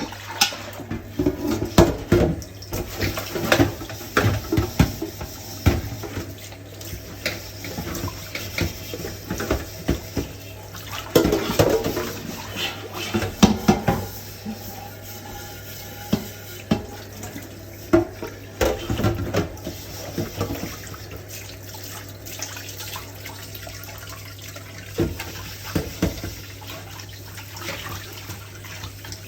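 Dishes being washed at a kitchen sink: water running and splashing from the tap, with plates, pots and cutlery knocking and clattering against each other and the basin. The clatter is busiest in the first half and thins out later.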